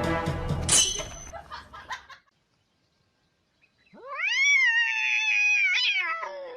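Background music fades out over the first two seconds. About four seconds in, a cat gives one long drawn-out yowl that rises steeply, holds, then falls away.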